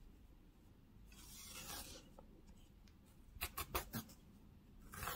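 Yarn being drawn through crocheted fabric with a needle while sewing a seam: a faint rustling swish about a second in, a quick run of scratchy ticks a little past the middle, and another swish near the end.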